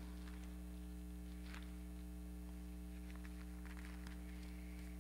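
Steady electrical mains hum from the sound system, with a few faint, soft rustles of Bible pages being turned.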